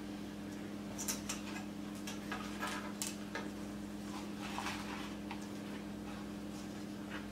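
Soft, scattered ticks and rustles of ribbon being handled and folded by hand, over a steady low hum.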